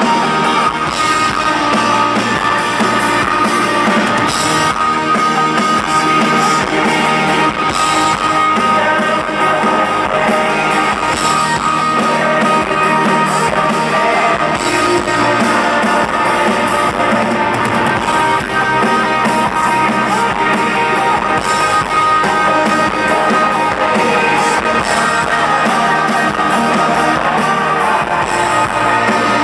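Live rock band playing an instrumental passage: guitar strumming over a drum kit.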